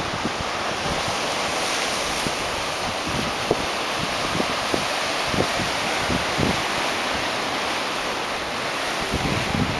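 Ocean surf breaking and washing over sandstone rock shelves, a steady rush of water, with wind buffeting the microphone in short low thumps.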